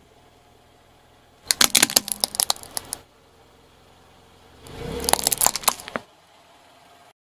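Hard plastic baby toy cracking and snapping as a car tyre rolls over it and crushes it. There are two bursts of rapid crackling about three seconds apart, and the second carries a low tyre rumble.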